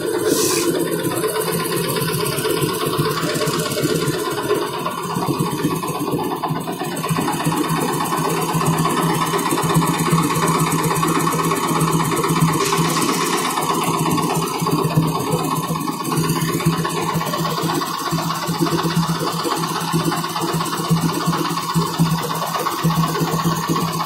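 Diesel engine of road-construction machinery running steadily, a low even drone.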